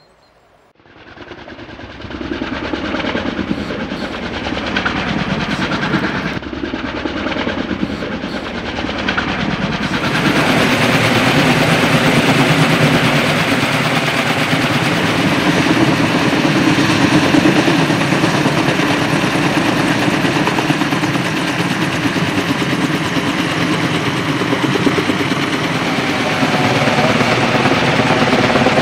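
Logging helicopter's rotors and engine, rising from faint to loud over the first few seconds as it comes in, then louder again about ten seconds in and holding steady.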